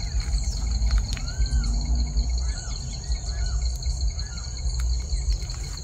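A steady, shrill insect chorus like crickets, holding two high pitches without a break. Several short arched bird chirps are scattered through it, over a low rumble.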